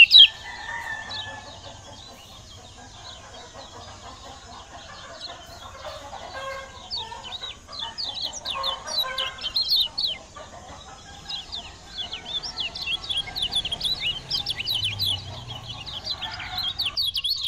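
Kecial kuning (yellow white-eye) singing: strings of very rapid, high, short chirping notes. They are sparse for the first few seconds, then come thick and fast from about five seconds in, over a lower layer of other bird calls.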